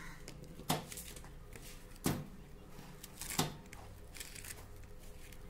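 Three sharp knocks about a second and a half apart, over a low steady hum, while a coir doormat and a rubber sheet are handled on a press bed.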